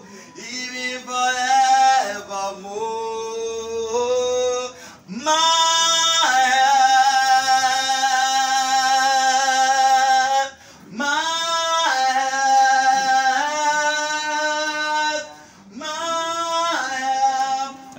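Voices singing a slow worship song in long, drawn-out phrases, with one note held for about five seconds in the middle and short breaks between phrases.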